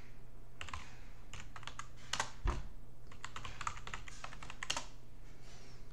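Computer keyboard being typed on: quick, irregular key clicks, with a heavier keystroke about two and a half seconds in.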